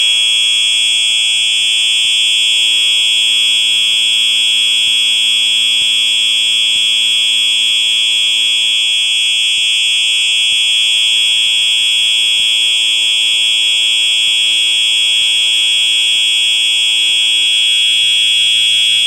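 Simplex 4903-9238 electronic fire alarm horn sounding a loud, steady, unbroken high-pitched tone.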